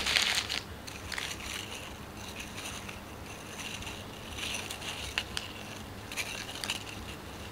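Foil-lined plastic biscuit wrapper crinkling as crackers are pulled out of it, loudest in the first half second. Softer rustles and a few light clicks follow as the dry crackers are handled together.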